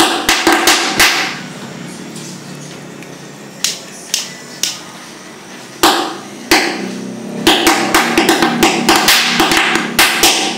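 Handheld jet torch burning HHO gas, giving a string of sharp pops and clicks: a cluster at the start, a few single ones, then a quick run of them near the end. A steady low hum lies beneath.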